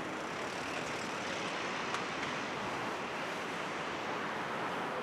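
Steady rushing noise of an Airbus A380's four jet engines on approach, with no changes in pitch or level.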